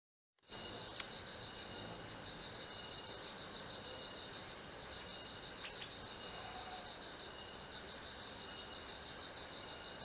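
Steady high-pitched insect chorus: a continuous whine with a pulsing trill beneath it. The highest whine drops away about seven seconds in, and there are a couple of faint ticks.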